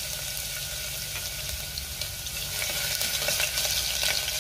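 Crushed garlic, mustard seeds and cumin sizzling and crackling in hot oil in a steel pressure cooker, a tempering (tadka). A spatula stirs the pan near the end, and the sizzle grows a little louder in the second half.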